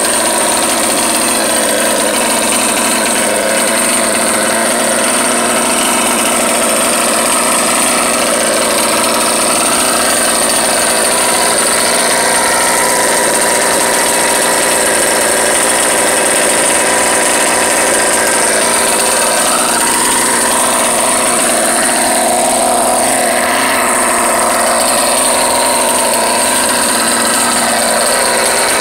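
OBR 57cc twin-cylinder two-stroke engine in an HPI Baja 5T-type 1/5-scale RC truck idling steadily through its twin tuned pipes, with a high whine over the engine note. The pitch wavers a little about twenty seconds in.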